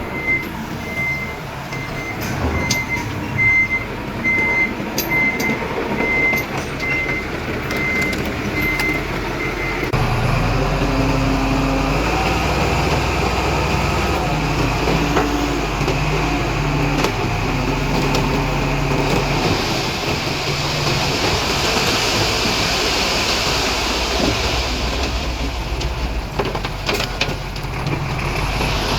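Dump truck's reversing alarm beeping at about two beeps a second over its diesel engine, stopping about ten seconds in. Then the engine runs louder and steadier under load, with a hissing rush partway through.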